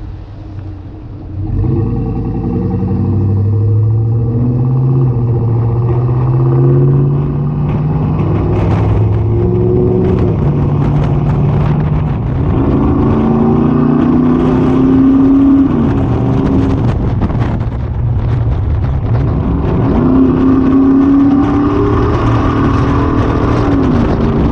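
Chevy Silverado's 5.3-litre V8 through a Flowmaster Outlaw cat-back exhaust, pulling under acceleration. The exhaust note climbs in pitch and falls back about three times, as the truck gains speed and shifts up.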